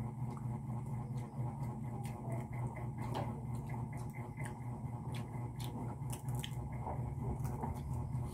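Eating by hand: fingers working rice and food in bowls and on plates, with chewing and small clicks and smacks, over a steady low hum.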